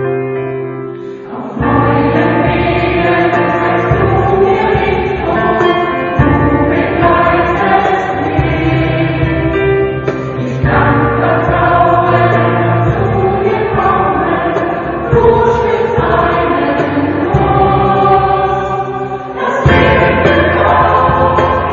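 Choir singing. The sound dips briefly about a second in and again near the end, with the full choir coming back in each time.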